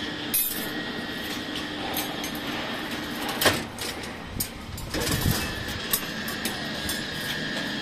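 Rebar bending machine bending steel bar into triangular stirrups: the machine's motor runs with a steady whine, stops for a moment about halfway and starts again, with sharp metal clanks of the bar against the bending disc and pins.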